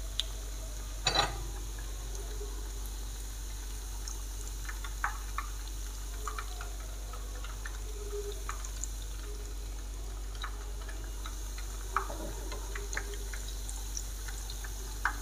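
Breadcrumb-coated beef mince cutlets shallow-frying in oil in a non-stick pan: a steady sizzle with scattered small crackles. A few louder knocks stand out, about a second in, near the end, and just before it ends.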